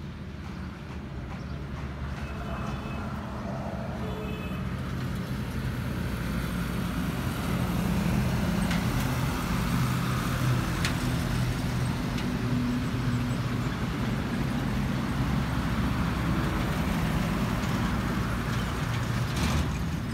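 Road traffic dominated by a heavy truck's engine. It grows louder over the first eight seconds or so, then holds steady as a low drone until it drops off right at the end.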